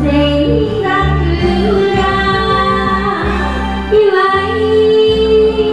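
Karaoke: a woman singing held notes over backing music with a steady bass line.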